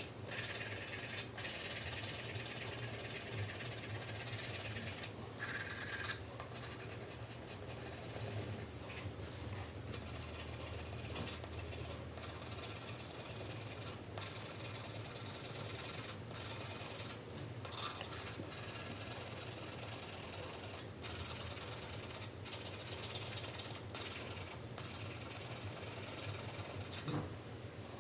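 4B pencil shading on paper: continuous scratchy rubbing of graphite strokes, broken by brief pauses every few seconds.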